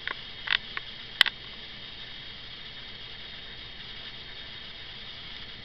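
A few short clicks and rustles in the first second and a half, the sharpest about a second in, then only a steady faint hiss.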